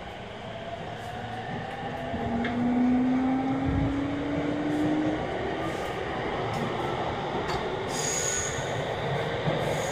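Sotetsu 10000 series electric train accelerating: the VVVF inverter, the kind nicknamed the 'ghost inverter', whines and rises slowly in pitch as the train picks up speed. The running rumble of the wheels and motors grows louder over the first few seconds, with a brief high-pitched whine near the end.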